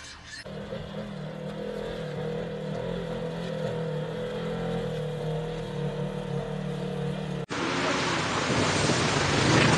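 An off-road vehicle engine running at a steady pitch. About seven and a half seconds in, a sudden cut brings in louder quad ATV engines with the splash of water as the quads drive through a river.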